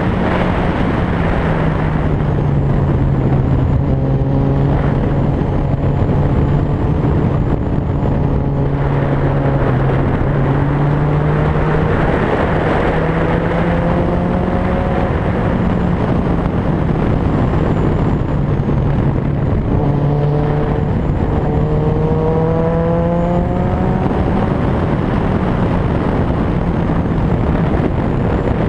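Motorcycle engine running at road speed under heavy wind rush on the microphone. The engine note drifts up and down gently, climbing for a few seconds about twenty seconds in before dropping back.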